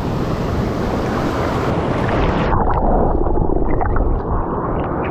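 Surf and wind on the microphone, a loud, steady rush; about halfway through it turns muffled, the hiss dropping away.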